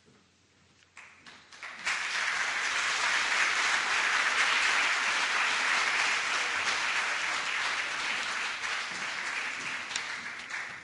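Audience applauding: a few scattered claps about a second in, swelling into steady applause that dies away at the end.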